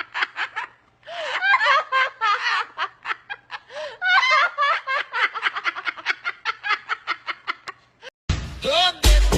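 A bird giving long runs of rapid, laugh-like cackling calls, pausing briefly about a second in. Near the end the calls stop and electronic dance music begins.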